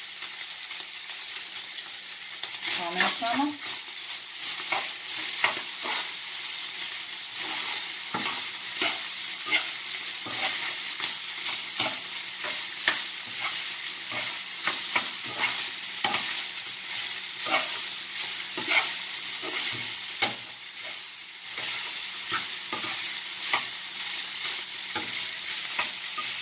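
Minced beef sizzling as it fries in a frying pan, nearly browned, while a spoon stirs it, scraping against the pan in repeated strokes over a steady hiss.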